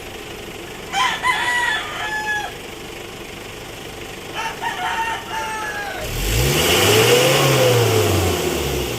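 Mitsubishi L300 van's diesel engine idling, then revved once, its pitch climbing over about a second and sinking back over the next two, a free-rev to show how much black exhaust smoke it puts out. A rooster crows twice before the rev.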